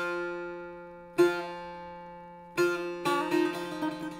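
Setar, the Persian long-necked lute, plucked with the index finger: single notes about every second and a half, each ringing out and fading, then from about three seconds in a fast run of rapidly repeated strokes. It is a phrase of the unmetred dar amad in the Abu Ata mode.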